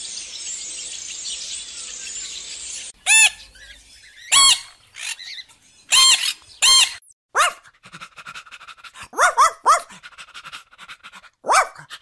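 A steady hiss for about the first three seconds that stops suddenly, then a string of about ten short, high-pitched animal calls, some single and some in quick pairs and triplets.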